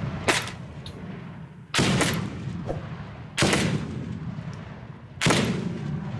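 Shoulder-fired grenade launcher firing at a range: four loud reports about one and a half to two seconds apart, each trailing off in a long echo.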